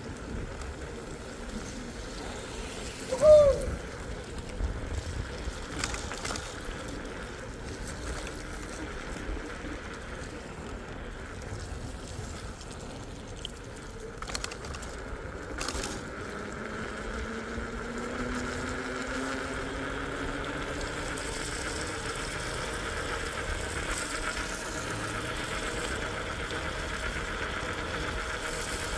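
Small e-bike being ridden: steady wind and road noise, with a faint rising motor whine about two-thirds through. A brief, loud squeak about three seconds in.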